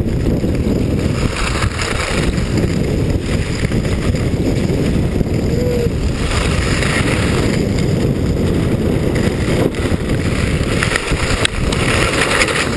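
Wind buffeting an action camera's microphone while skiing downhill, with skis hissing and scraping over packed, groomed snow in swells every few seconds.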